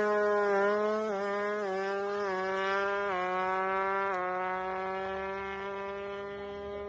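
Tuned single-cylinder drag-bike engine (a Satria FU bored to 200cc) holding a steady high note between revs, with small dips in pitch, slowly getting quieter.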